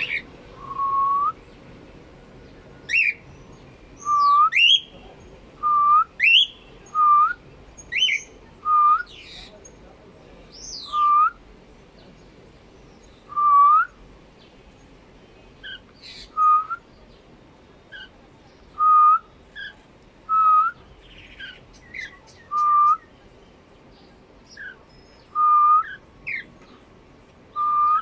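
Caged cockatiels whistling and chirping: a short, upward-hooking whistle repeated about every second or so, with higher, quicker chirps mixed in.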